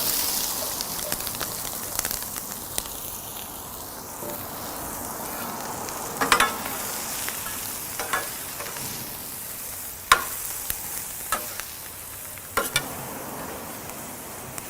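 Vegetables sizzling steadily on a hot stainless steel griddle cooktop. A spatula strikes and scrapes the steel several times in the second half.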